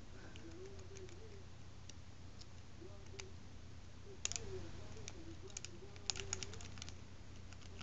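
Small clicks and scrapes of a lock pick and tension wrench working the pins of a Brinks high-security padlock, sparse at first, with a sharper click about four seconds in and a quick cluster around six seconds; the picker is struggling to get the spool pins out of a false set. A faint steady hum and a soft wavering tone sit underneath.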